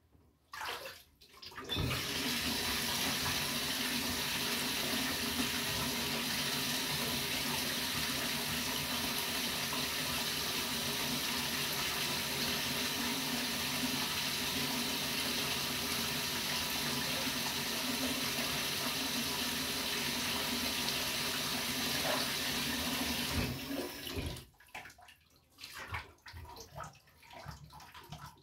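Water running steadily from a tap into a bathtub, turned on about two seconds in and shut off abruptly near the end, followed by a few quieter irregular splashes.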